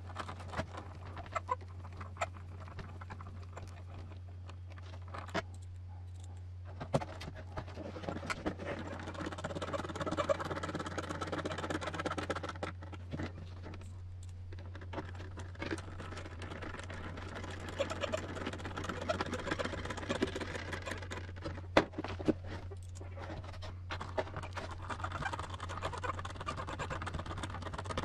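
Small machine screws being driven by hand with a screwdriver into a hard plastic RC truck body. Stretches of a few seconds of scratchy turning and handling noise come with scattered sharp clicks and taps of plastic parts, over a steady low hum.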